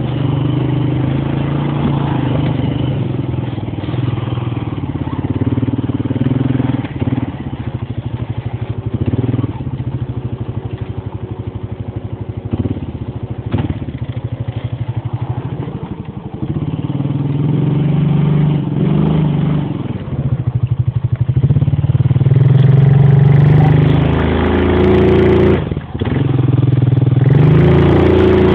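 Honda Rancher ATV's single-cylinder four-stroke engine running as the quad is ridden, engine speed rising and falling, louder in the last several seconds with a brief drop just before the end.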